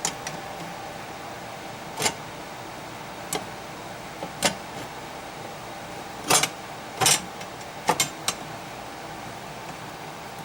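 Scattered sharp clicks and knocks, about eight at irregular spacing, from handling gear and tools on a workbench, over a steady faint hum.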